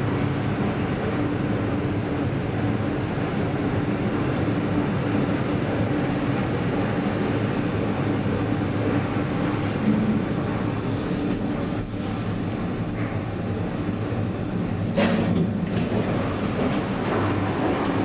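Steady low mechanical hum of a KONE inclined elevator running and arriving, with a short knock about ten seconds in as its glass doors open and a sharper clatter a few seconds later.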